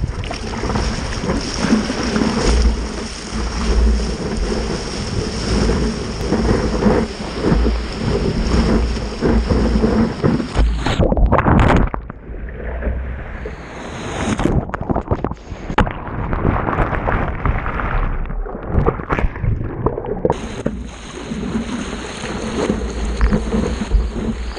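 Wind buffeting the microphone of a camera mounted on a stand-up paddleboard, with choppy waves splashing around the board. From about eleven to twenty seconds in, the sound turns muffled as the camera is plunged into whitewater, then clears again.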